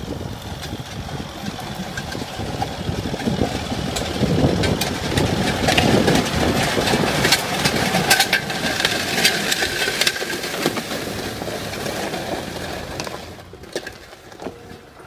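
Tractor engine running under load while working the ground, with many sharp cracks and clatters over it, thickest through the middle; the sound drops quieter near the end.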